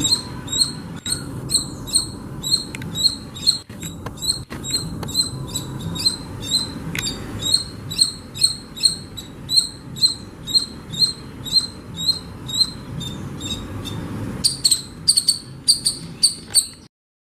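Squirrel giving a long run of sharp, high chirps at about two a second, quickening into a faster burst near the end.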